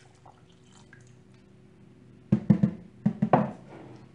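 Two quick clusters of sharp knocks, the first about two and a half seconds in and the second about three and a quarter seconds in, after a quiet start.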